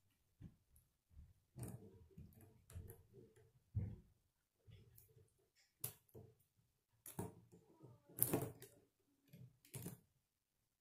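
K'nex plastic rods and connectors being handled and snapped together: irregular small clicks and rattles, the loudest a little past the middle.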